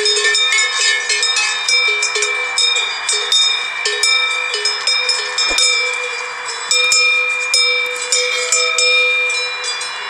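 Bells worn by the sheep clanking irregularly as the flock moves, several bells of different pitch ringing over one another.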